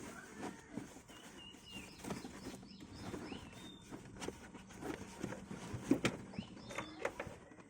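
A few short, high bird chirps over scattered knocks and rustling from handling, with one sharper knock about six seconds in.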